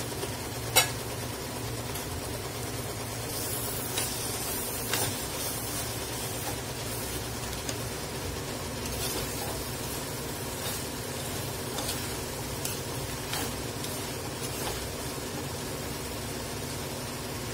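A steel spoon scraping and clinking against a cooking pot as a steaming vegetable stir-fry is stirred, in irregular strokes over a steady low hiss. There is one sharp, loud clink about a second in.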